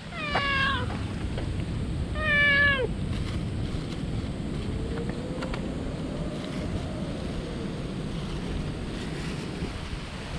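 Cat meowing twice: two loud, drawn-out meows about two seconds apart, each dropping in pitch at the end, over a steady low background rumble.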